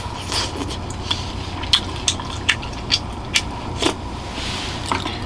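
A person eating hot rice-cake soup by the spoonful: sips and chewing, with a string of short sharp clicks about every half second, over a steady low hum.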